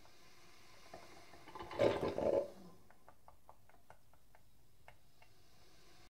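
Dolphin sounds: a loud, rough burst lasting about a second a couple of seconds in, followed by a run of short sharp clicks at about five a second.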